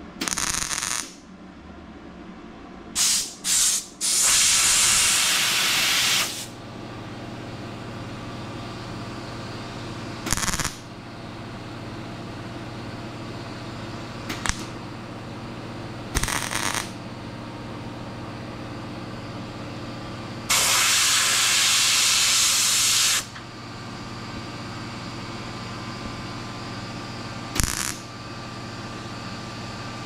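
MIG welder tacking a round steel patch into a shaved door-handle hole in a car door: about eight short bursts of crackling, sizzling arc, most under a second and two lasting two seconds or more, with a steady low hum between them.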